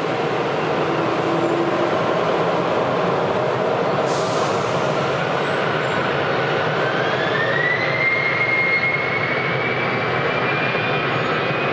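Jet aircraft engines running with a steady rush and a whine that climbs in pitch from about four seconds in: the engines spooling up.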